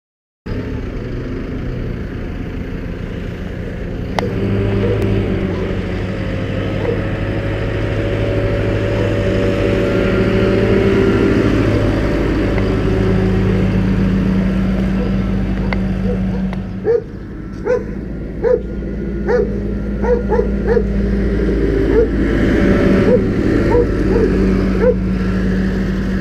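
JCB 541-70 Agri Pro telehandler's diesel engine running steadily as the machine drives about, with a series of short, sharp yelps repeating about once or twice a second from a little past the middle onward.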